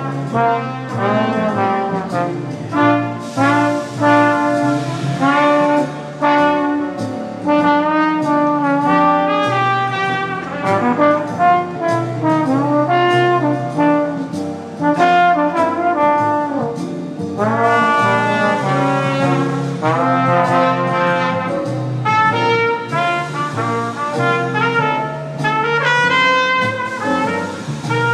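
A trombone and a trumpet playing a tune live, with many quick changing notes; at times one horn plays while the other rests, and near the end the trumpet plays alone in a run of high notes.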